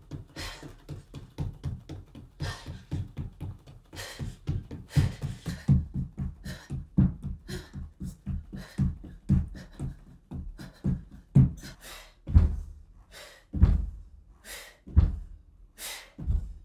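Bare feet thudding rhythmically on a wooden floor during a fast workout, about three or four steps a second, with sharp puffs of breath. From about twelve seconds in, the thuds come less often and heavier, about one a second, like landings from jumps.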